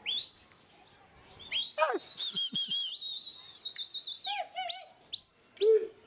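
A run of long, high human whistles. Each note rises quickly at the start, holds steady, then drops at the end, with a few short warbled whistles near the end. It is a pigeon keeper whistling to his flock while it is in flight.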